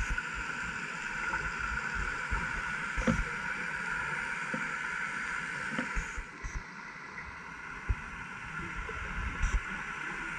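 Underwater sound picked up by a diver's camera in its housing: a steady hiss with a few short knocks.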